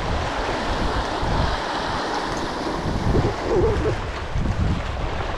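Sea waves washing and breaking over rocks, with wind buffeting the microphone in uneven low gusts.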